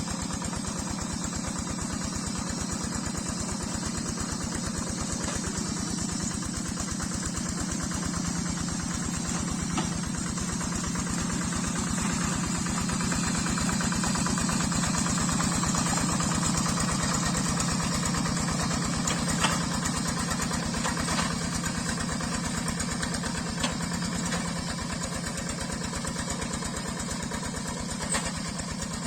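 Yanmar single-cylinder diesel engine of a Quick G3000 Zeva hand tractor running steadily while it works deep wet paddy mud. It grows a little louder around the middle, and there are a few sharp clicks in the second half.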